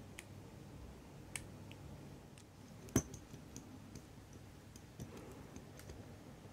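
Scattered small clicks and taps of watchmaker's tools on a watch movement and the bench, with one sharper knock about three seconds in.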